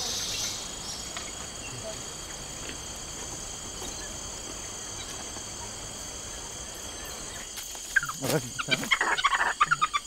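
Insects chirring steadily, with a high buzz that is loudest in the first second. About eight seconds in, a burst of loud, sharp, rapidly repeated cries breaks out over it.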